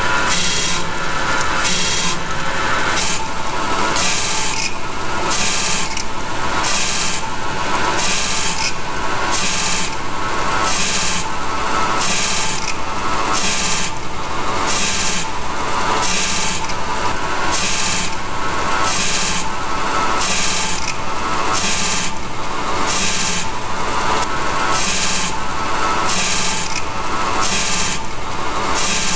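Grinding wheel of a roll and stabilizer grinder working the spiral blades of a turning oil-field stabilizer. A rasping grind rises and falls evenly, about once a second, over a steady machine hum.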